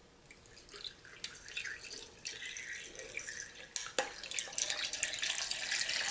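Green mint milk poured in a stream over ice into a glass pitcher, splashing and bubbling and growing louder as it fills. A few sharp clicks and cracks come from the ice along the way.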